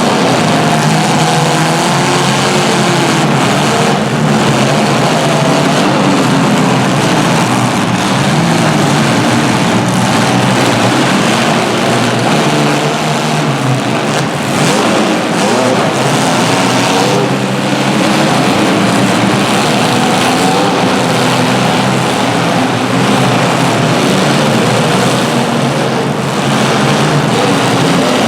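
Several compact cars' engines running and revving at once, their pitch rising and falling throughout.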